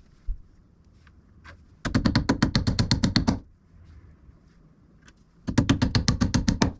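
Two bursts of rapid knocking, about ten strikes a second and each lasting a second or so, from a power tool driving fasteners to hang a pipe hanger.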